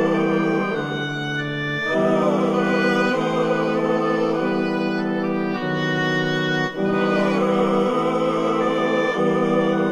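Gothic music: slow, sustained chords that move to a new chord about every second.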